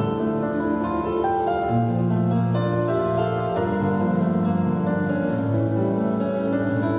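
Instrumental interlude of a song: a piano over held chords, with new notes coming in every second or so.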